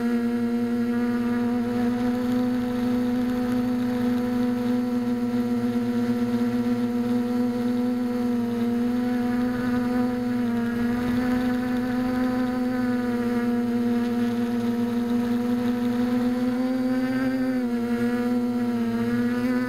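Electric motors and propellers of a small foam tricopter in flight, heard from the camera on board: a steady buzzing drone whose pitch dips briefly about halfway through and a few times near the end.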